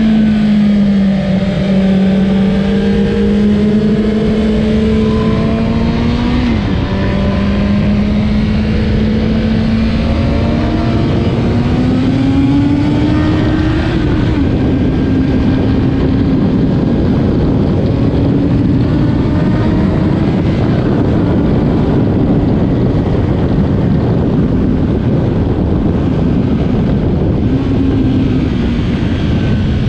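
Stock 2008 Kawasaki ZX-10R's inline-four engine at sustained high revs on track, its note rising and falling with throttle and gear changes, under heavy wind rush on the onboard microphone.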